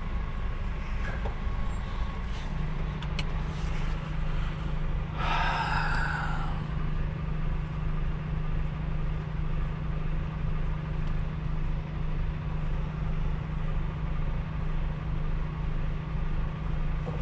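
Truck engine running steadily as heard inside the cab, with a steady low hum setting in about two seconds in. A brief louder hiss-like sound comes about five seconds in and lasts just over a second.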